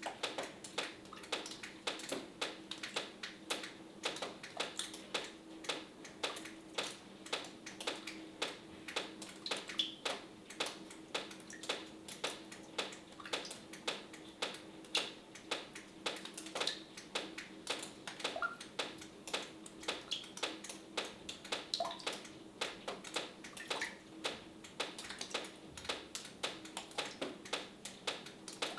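Water dripping, many irregular drips a few times a second, some with a short high plink, over a faint steady hum.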